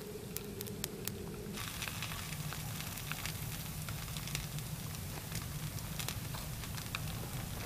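Crackling and sizzling of desert playa soil melting into glass under a sunbeam focused by a large lens, with many small sharp clicks. It is heard as a film soundtrack played over loudspeakers in a hall. A low hum cuts off about a second and a half in.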